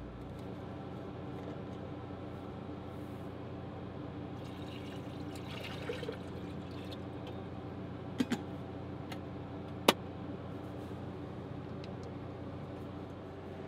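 Water pouring into a glass carafe for coffee, for about two seconds starting about four and a half seconds in, over a steady machine hum. A few sharp clicks come about eight and ten seconds in.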